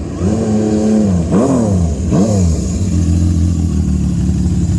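Benelli Sei 900's inline six-cylinder motorcycle engine being revved: a rise in revs held for about a second, then two quick throttle blips that fall straight back, before it settles to a steady idle.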